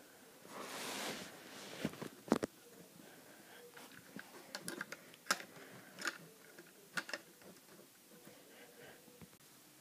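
Hands handling a LEGO-brick rubber band gun: irregular sharp plastic clicks and knocks from the bricks and rubber bands, with a soft rustle near the start.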